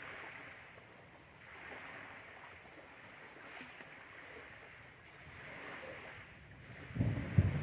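Wind blowing in soft gusts that rise and fall. About seven seconds in, a strong gust buffets the microphone with loud low rumbling.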